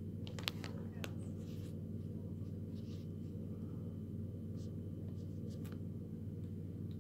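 Light hand-handling noises: a few sharp clicks about half a second in and again near six seconds, with faint rustling, over a steady low hum.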